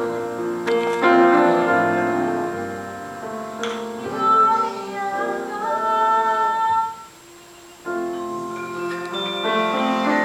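Piano playing held notes with a voice singing along, with a brief lull about seven seconds in.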